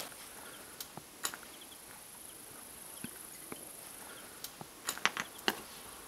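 Footsteps through tall dry weeds: scattered faint rustles and snaps of stalks, the loudest cluster about five seconds in, over a steady high insect buzz.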